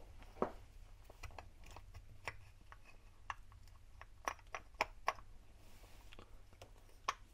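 Irregular small clicks and taps as the Shurflo 12 V pump motor's housing and parts are turned and fitted together by hand.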